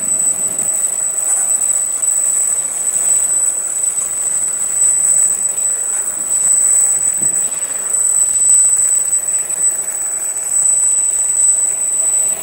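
Dynamic CO2 laser marking machine cutting a pattern into paper card: a steady high-pitched whine over a hiss of air from the fume extraction hose held over the cut.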